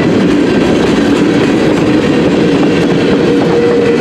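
CN freight train cars rolling past close by: a loud, steady rumble of steel wheels on rail with some clickety-clack, and a steady ringing tone in the noise that shifts higher near the end.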